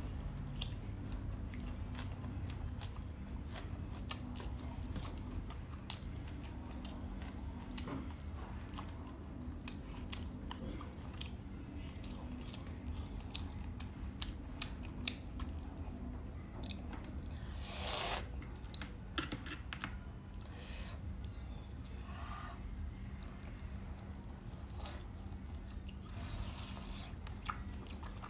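A person eating bánh mì and grilled shrimp: chewing and biting, with many small clicks and crunches over a low steady hum, and one louder noisy burst about eighteen seconds in.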